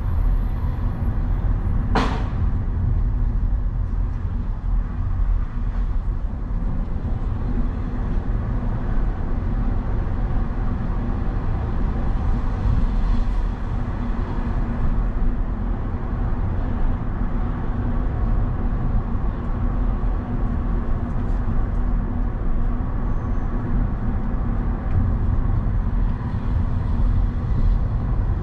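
Steady low rumble of a road vehicle driving, with one sharp click about two seconds in.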